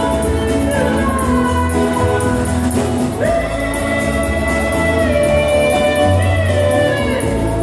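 Live country band playing acoustic guitars, fiddle and banjo. From about three seconds in there are long held notes with small slides.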